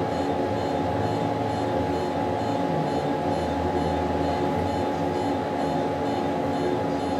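Steady machine hum made of several unchanging tones, from equipment running in the operating room.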